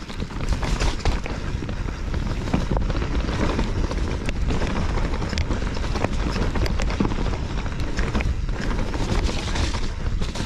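Enduro mountain bike riding down a dirt forest trail: tyres rumbling over dirt and roots, with frequent short knocks and rattles from the bike over the bumps, and wind rushing on the microphone.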